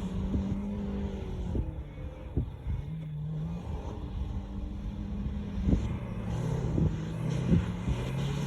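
Vehicle engine revving up and down as it drives in circles, its pitch rising and falling, with several sharp knocks now and then.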